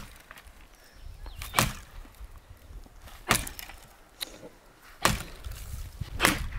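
Axe chopping into a dry, dead tree stump: five sharp wooden strikes, about one every second and a half.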